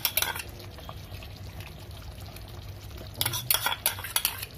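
Metal ladle scraping yogurt out of a plastic bowl into a pot of simmering curry, clinking against the bowl and the pot in a cluster of knocks at the start and again about three seconds in, with a low steady background between.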